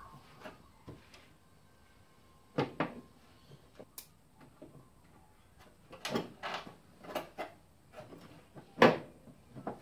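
Irregular clicks and knocks of small metal parts and tools being handled against a car's scuttle panel while wiper linkage is fitted. There are two knocks about a third of the way in and a quick run of clicks past the middle. The loudest knock comes near the end.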